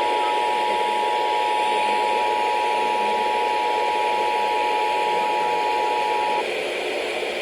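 Emergency Alert System attention signal: a steady two-tone alarm over a constant hiss, cutting off about six seconds in and leaving the hiss. The signal announces an emergency alert, here a severe thunderstorm warning.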